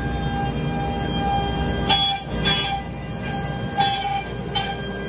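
Axiom CNC router's spindle running with a steady, many-toned whine as its small end mill carves letters into a hardwood board. There are four brief louder bursts, about two, two and a half, four and four and a half seconds in.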